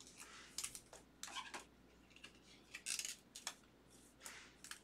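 Faint rustling and sliding of clear plastic card sleeves as a trading card is slipped into a sleeve and a rigid card holder, in several short rustles.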